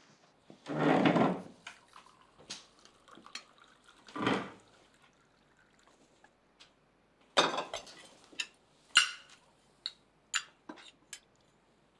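Tea poured from a porcelain teapot into a cup, a thin running trickle, with a short chair scrape near the start. Several light clinks of china and cutlery follow in the second half.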